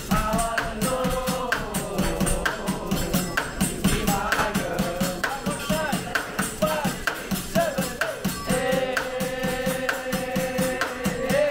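Music with a melody and a steady rattling beat of about three to four strokes a second, with a long held note near the end.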